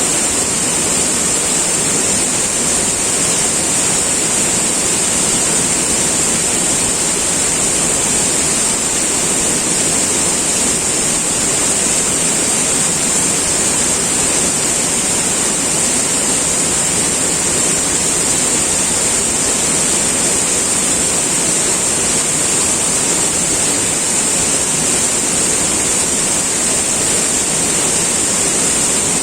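River water flowing and rushing steadily, an even, unbroken noise, with a steady high-pitched hiss over it.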